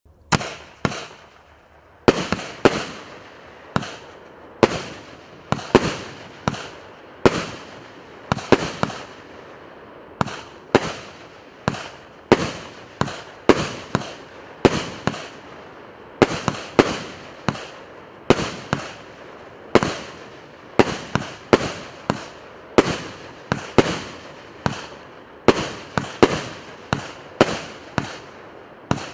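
'Malachite Box' consumer firework battery (cake) firing shot after shot: sharp bangs at about one to two a second, each followed by a short fading tail.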